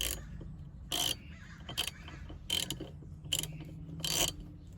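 Hand ratchet wrench clicking in about six short bursts, a little under a second apart: the back-swings of the ratchet as the steering wheel hub's nut is tightened.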